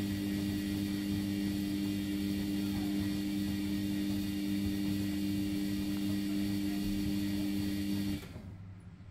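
Sharp (Vestel) ES-GFB7145W washing machine tumbling its load in the main wash of a 90° boil wash: a steady motor hum with the swish of sudsy water. The sound cuts off suddenly about eight seconds in as the drum stops turning.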